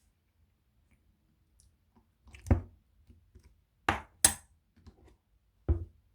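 Four sharp knocks or clicks on a hard surface, with a close pair about four seconds in.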